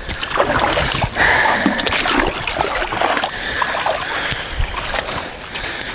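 Water splashing and dribbling close by, irregular, with small clicks and knocks mixed in.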